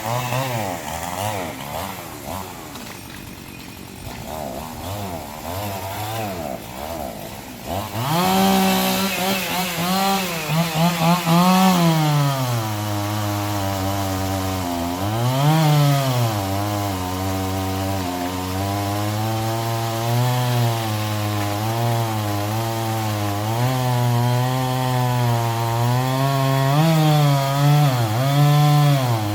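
Chainsaw cutting logs: fainter for the first eight seconds or so, then loud at high revs, its pitch sagging and recovering again and again as the chain bites into the wood.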